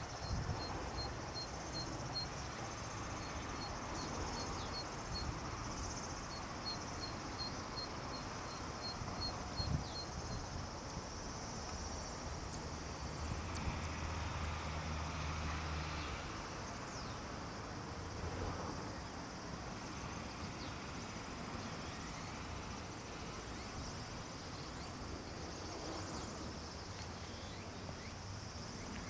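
Summer outdoor ambience: an insect chirping in an even rhythm, about two or three high chirps a second, stopping about ten seconds in, over a steady hiss and low rumble.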